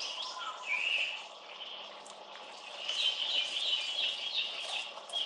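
Birdsong sound effect played back: bird chirps and short gliding calls that start suddenly and come in clusters.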